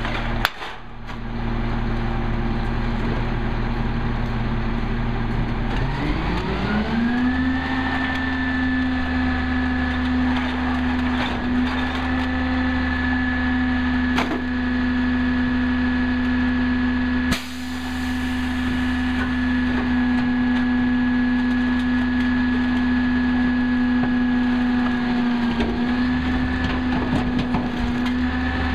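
Peterbilt 320 garbage truck's engine idling, then about six seconds in it revs up smoothly and holds a steady higher speed, dipping briefly near the end. A few sharp knocks come over it as bags and carts hit the truck.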